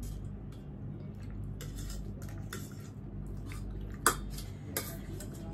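Cutlery clicking and scraping against a bowl while eating ramen noodles, with one sharp clink about four seconds in.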